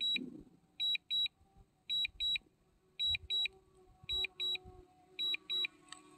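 A drone's remote controller sounds its return-to-home warning: a pair of high beeps about once a second, six pairs in all. It signals that the DJI Mini 2 is flying itself home on auto return-to-home because its battery is low.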